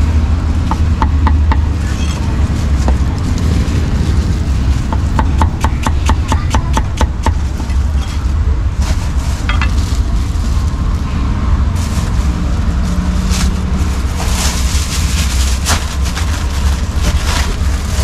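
Steel cleaver working on a round wooden chopping block: scraping, then a fast run of chopping strokes, about five a second, for two seconds midway. Near the end, plastic bags rustle as the food is bagged, all over a steady low rumble.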